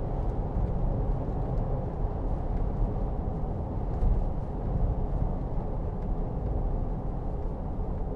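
Steady low rumble of engine and road noise heard inside the cabin of a 2009 Range Rover 3.6 TDV8 diesel.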